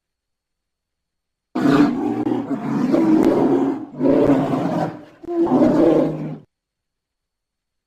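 Polar bear roaring: silence, then a long roar starting about a second and a half in, followed by two shorter roars in quick succession.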